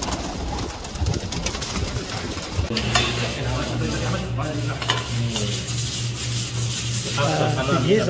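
Domestic pigeons cooing, then after about three seconds a steady low hum with stirring and sloshing as slaughtered pigeons are dipped and worked by hand in a pot of hot water for plucking.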